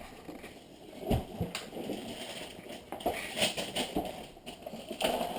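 Irregular knocks and rustling of Christmas presents being handled and unwrapped, the rustling growing stronger in the second half.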